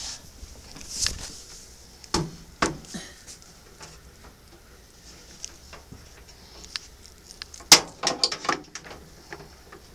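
Scattered light clicks and rustles from handling a paper-wrapped bar of soap, with a quick flurry of clicks about eight seconds in.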